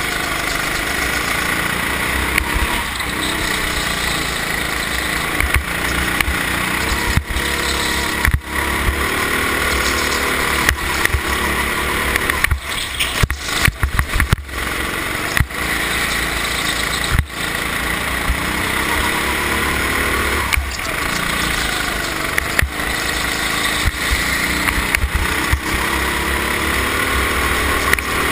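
Kart engine heard from a camera mounted on the kart, its revs rising on the straights and falling into the corners over and over. Sharp knocks and rattles come through the mount, a quick run of them about halfway through.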